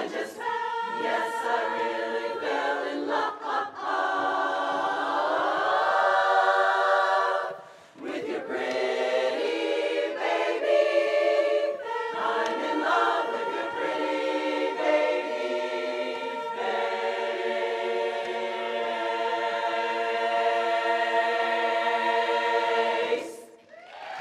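Women's barbershop chorus singing a cappella in close harmony, with a rising slide in pitch a few seconds in and a brief break near a third of the way through. It ends on a long held final chord of about seven seconds that cuts off sharply just before the end.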